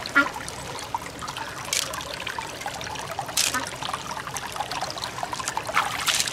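Water trickling, with a few short, sharp sounds; near the end water is poured over the beads in an open mussel shell.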